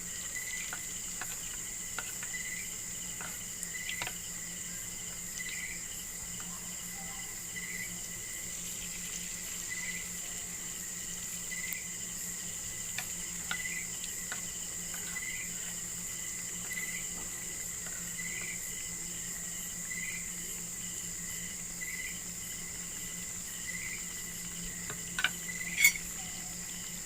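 Crickets or similar insects calling steadily: a constant high buzz with a short repeating chirp about once a second. A few small clicks, and two sharp clicks near the end are the loudest sounds.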